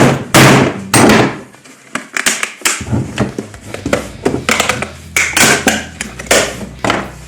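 Plastic housing of an old Philips surveillance camera being forced and broken apart: three loud cracking blows in the first second or so, then a run of smaller snaps and cracks.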